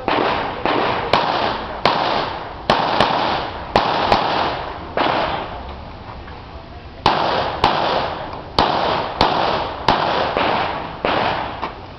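Pistol shots fired in quick strings, roughly half a second apart, each crack ringing on briefly; about nine shots, a pause of about two seconds near the middle, then about nine more.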